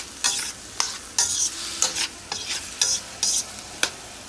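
Spatula scraping and tossing seasoned chicken pieces around a hot wok, in irregular strokes of about two a second, with the chicken sizzling as it fries.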